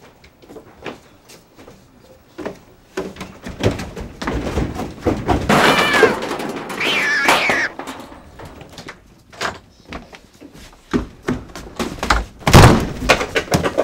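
A cat meows, high-pitched calls falling in pitch about six and seven seconds in, among scattered light knocks. Near the end comes a loud thump, like a door banging.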